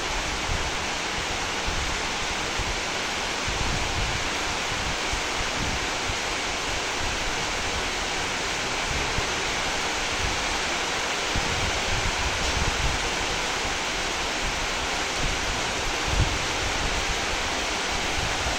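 Heavy rain pouring steadily onto tree leaves, an even hiss, with low gusts of wind buffeting the microphone now and then.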